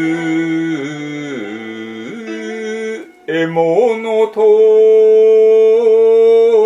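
Male voice chanting in shigin style (kayō ginei, an enka song sung in poetry-recitation manner): long held notes with slow pitch bends. It breaks off briefly about three seconds in, then holds one long steady note.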